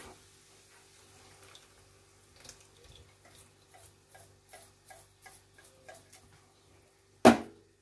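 Hand can opener being cranked around a tin of tomatoes: a run of soft, evenly spaced clicks, about three a second, then one sharp loud clack near the end.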